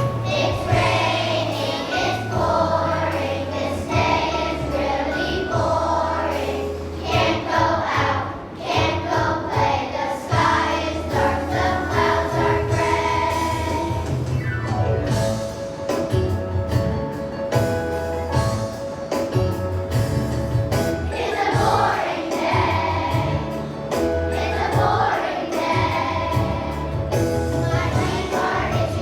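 A children's choir sings a song over instrumental accompaniment with a steady bass line and beat.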